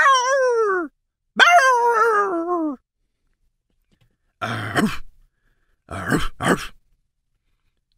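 A person's voice imitating dogs: two long calls that fall in pitch, like howling barks, then after a pause three short, rough, gruff barks.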